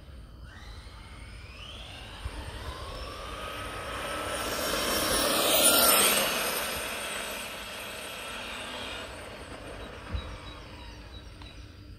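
Large-scale MCD W5 RC car with a brushless electric motor speeding past: a high motor and gear whine that rises in pitch as it accelerates, grows louder to a peak about six seconds in as it passes, then fades while dropping in pitch. A brief click sounds near the end.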